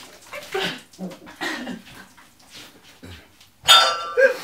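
Two people chugging shotgunned cans of beer: short gulping and gasping noises, then a louder vocal cry about three and a half seconds in.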